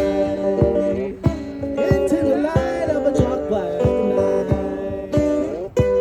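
Live acoustic guitar music with a singing voice over it, and a steady low thump marking the beat about every two-thirds of a second.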